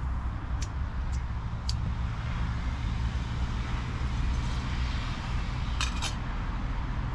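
Steady rumble of nearby road traffic, with a few sharp clicks as the camping stove is handled and the kettle put on: three about half a second apart in the first two seconds and a quick run of clicks about six seconds in.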